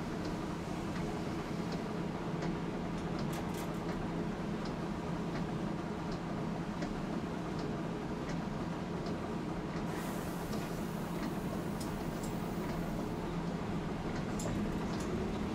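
Tosaden streetcar running, heard from on board: a steady low hum and rumble with a regular light ticking, somewhat under two ticks a second. A higher hiss comes in about ten seconds in and lasts a few seconds.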